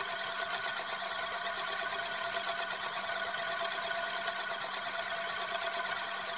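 Euler's Disk, a heavy chrome-plated steel disc, spinning and rolling its rim around its concave mirror base: a steady, fast-fluttering metallic whir.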